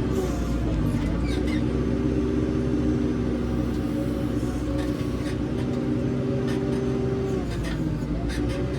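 Diesel engine of a JCB 3CX backhoe loader running under load while digging. Its note rises about a second in, holds steady, and falls back near the end, with a few short knocks along the way.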